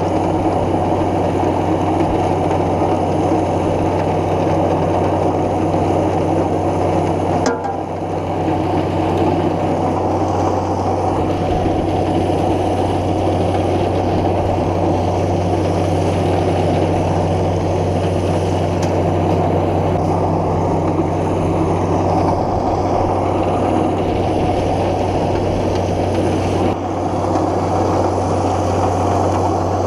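Diesel farm engine running steadily at a constant speed, a loud, even drone with a strong low hum.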